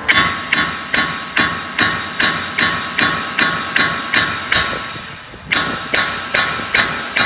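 A small sledgehammer striking a car's steering knuckle over and over, about two blows a second with a short pause near five seconds. Each blow rings like metal on metal. The blows are driving the knuckle down off the lower end of the front shock absorber to free it.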